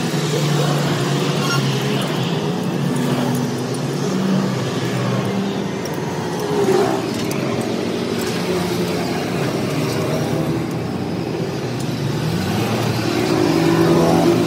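Motor vehicle engines running, with the pitch of one engine rising about twelve seconds in.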